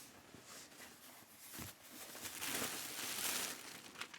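Shipping packaging being handled and opened: faint rustling at first, then from about two seconds in a denser crinkling, tearing noise lasting around a second and a half.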